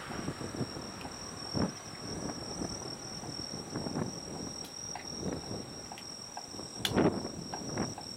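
Insects trilling in a steady, high-pitched drone, with scattered irregular knocks and thumps, the loudest about seven seconds in.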